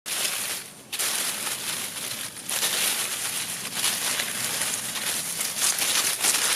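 Dense, continuous crinkling and crackling noise, most of it hissy and high, with two brief dips in the first two and a half seconds; it starts abruptly.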